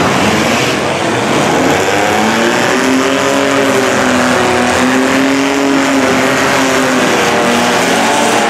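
Engines of several compact demolition derby cars running and revving, their pitch slowly rising and falling over several seconds.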